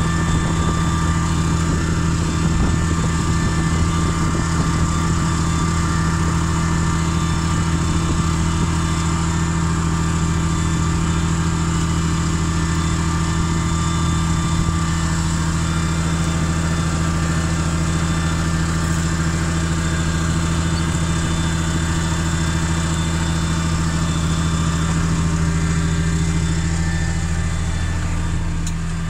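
Farm tractor engine running at a steady speed under load while pulling a row cultivator through a bean field, heard from the tractor seat. It holds an even, low drone, easing slightly near the end.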